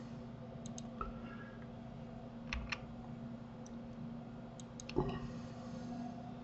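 Scattered computer mouse clicks and keyboard key presses, about nine short clicks with the loudest about five seconds in, over a faint steady hum.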